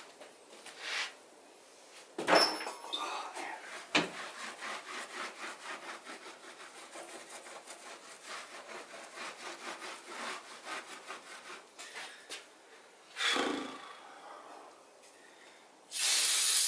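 A rag wiping the underside of a Cummins 6.7 cylinder head in quick back-and-forth strokes, about four a second. A knock and a sharp click come before the wiping. A spray hisses loudly near the end.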